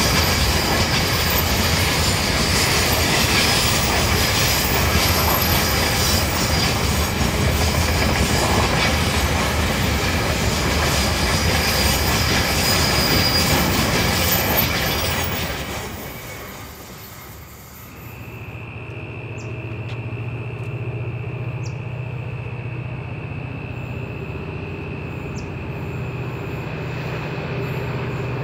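Freight hopper wagons rolling past on a curve, wheels rumbling over the rails with a high squeal of flanges on the curving track. About 17 s in this fades out, and a distant C class diesel locomotive engine drones steadily, with a steady high whine and a few short high chirps over it.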